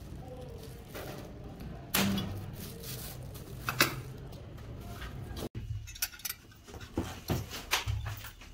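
Small stamped-metal electric-iron parts being handled, giving scattered clinks and sharp knocks of metal on metal, a few of them in quick succession near the end.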